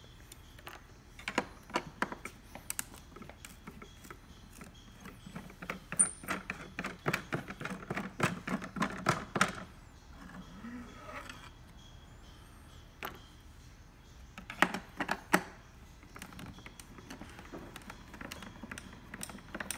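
Phillips screwdriver clicking and scraping in the screw heads as screws are backed out of a plastic instrument housing, with small metal clinks. The clicks come in scattered runs, with a dense run of rapid clicks around the middle and a short cluster later.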